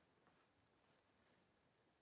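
Near silence: room tone, with one faint tick a little after half a second in.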